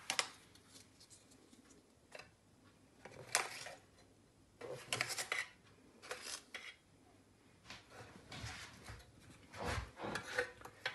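A plastic measuring scoop and an opened tin of powdered infant formula being handled: a sharp clack at the start, then a string of short scrapes and rattles with quiet gaps between them as powder is scooped out.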